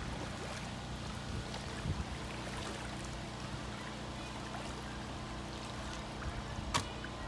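Lake water lapping and splashing around an inner-tube raft as a wooden paddle dips in, over a steady low hum. A single sharp knock comes near the end.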